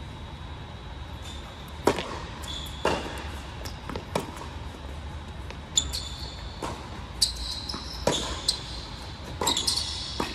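Tennis rally on an indoor hard court: about ten sharp pops of racket strikes and ball bounces, with short high sneaker squeaks, echoing in the large hall.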